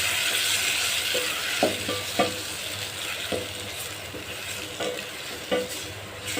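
Onions sizzling as they fry in a pot, stirred with a spoon that knocks against the pot several times. The sizzle eases off gradually.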